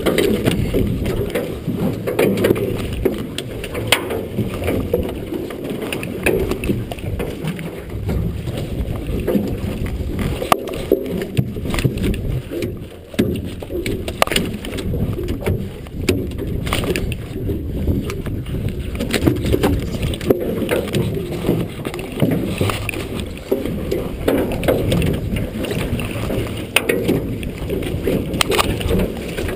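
Muffled low rumble of a fishing skiff on the water, with scattered knocks and clicks from hauling and picking a salmon gillnet by hand, all dulled by a waterproof camera housing.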